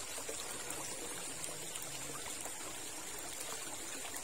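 Shallow river water trickling steadily over stones, with a steady high-pitched hiss above it.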